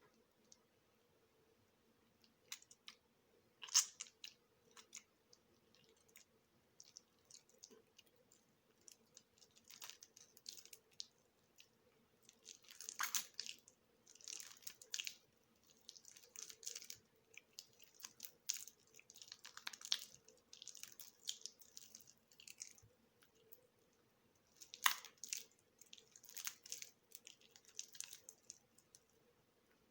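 Soft, water-soaked bar of soap being cut and crushed, giving irregular bursts of crackling crunches with short pauses between them. The sharpest cracks come about four seconds in and again about five seconds before the end.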